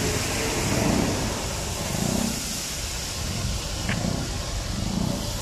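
Calamares (battered squid) deep-frying in a wide pan of bubbling oil, giving a steady sizzle, over a low rumble of street traffic.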